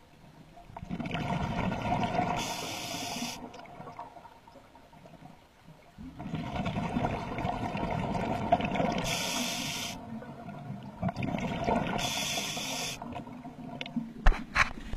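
Scuba diver breathing through a regulator underwater: three long bursts of bubbling exhaust, each with a short high hiss, separated by quiet gaps. A few sharp clicks near the end.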